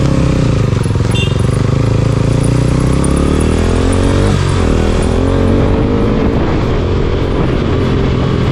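KTM RC sport bike's single-cylinder engine running on the move, with wind rushing over the microphone. The engine note dips and climbs again a few times as the throttle changes.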